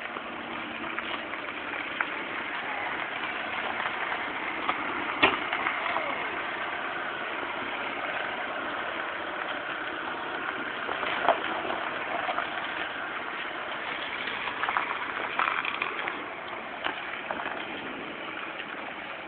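Honda Odyssey minivan rolling slowly across gravel: a steady hiss of tyres on loose stones over the low engine, with scattered sharp clicks of gravel, the loudest about five seconds in.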